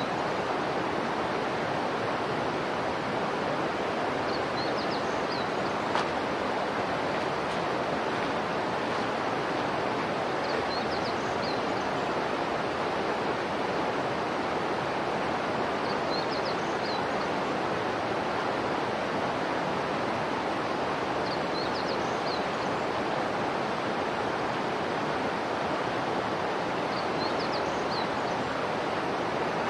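Steady rush of flowing water, with a short high chirp repeating about every five and a half seconds.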